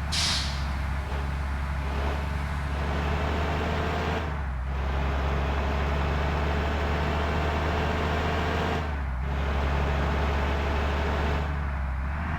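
Intercity bus engine running steadily with a deep hum, easing off briefly twice, about four and a half and nine seconds in.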